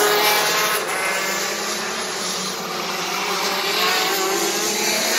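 Several racing go-kart engines running on the track at once, their high-pitched tones overlapping. The sound eases off a little around the middle and swells again near the end.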